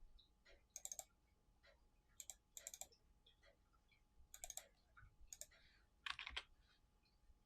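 Faint clusters of quick clicks from a computer mouse and keyboard, several groups spread over a few seconds, with a slightly longer rattle of clicks near the end.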